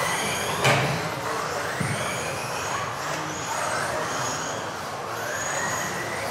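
Off-road RC racing cars' electric motors whining, their pitch rising and falling as the cars accelerate and slow around the track. A sharp knock sounds just under a second in.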